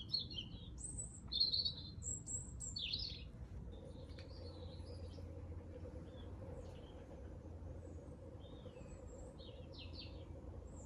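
Small birds chirping and twittering, loudest in the first three seconds, then fainter scattered chirps, over a faint steady low hum.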